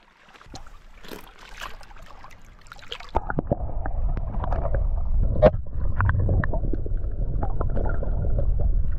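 Water splashing and dripping as a fish is lowered into the sea. About three seconds in, the sound turns to the muffled low rumble and scattered clicks of water heard through a camera held underwater.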